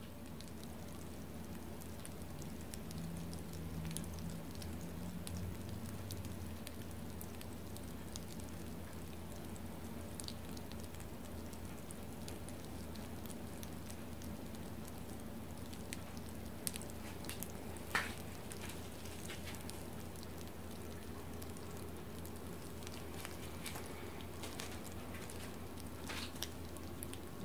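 Freshly roasted peanuts cooling on newspaper, giving off sparse small ticks and crackles, with one sharper click about two-thirds of the way in. A steady low hum runs underneath.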